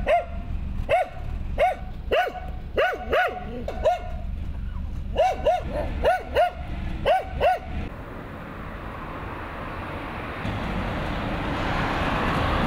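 A dog barking repeatedly in short, irregular bursts for the first half. Then a truck approaches and passes close, its tyre and engine noise growing louder toward the end.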